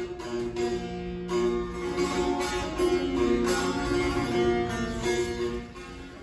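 Persian music played on a sitar: a plucked melody over a steady held note, fading down near the end.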